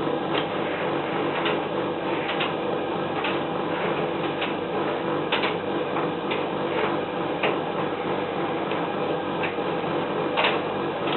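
Servis M2001W tumble dryer running with a small half load: a steady motor and drum hum with light knocks about once a second as the clothes tumble. Vibration is low with the small load.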